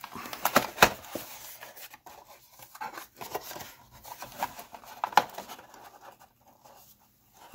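Cardboard box being opened by hand: flaps pulled and folded back, with rubbing and scraping of card and a few sharp clicks, quieter near the end.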